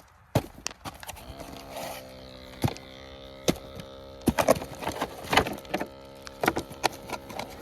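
A steady electric motor hum starts about a second in and holds. Irregular clicks and knocks of tools and parts being handled sound over it.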